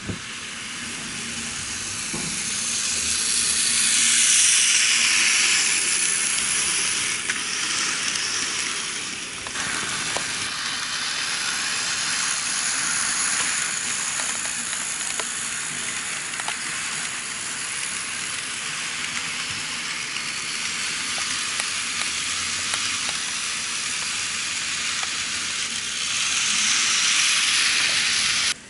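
KATO N-gauge model train running along Unitrack: a steady high hiss of small wheels and motor on the rails that swells as the train passes close, around four seconds in and again near the end, with a few faint clicks.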